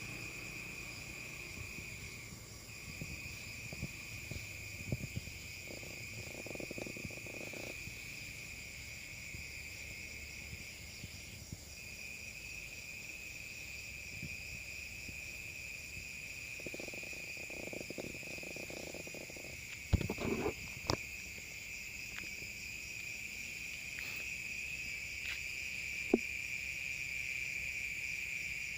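Night insect chorus, crickets trilling in one steady high-pitched drone. A few sharp clicks or knocks stand out about twenty seconds in and once more near the end.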